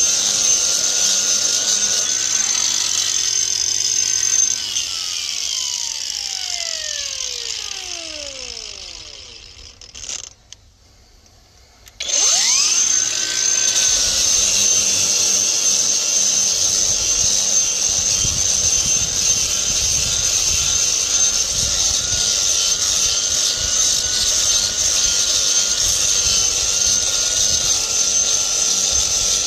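Cordless angle grinder with a diamond disc grinding down cement benching in a manhole, running at a high steady whine. About four seconds in it is switched off and spins down with falling pitch, goes near silent for a moment, then starts up again with a rising whine about twelve seconds in and runs on, grinding the cement with a low rumble under the whine.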